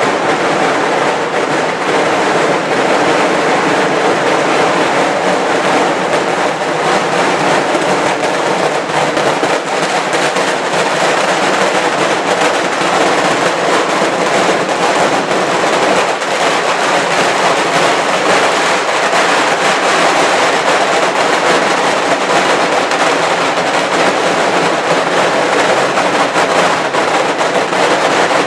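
Daylight firework barrage going off at street level: a rapid, unbroken string of firecracker bangs so close together that they run into one continuous crackling roll.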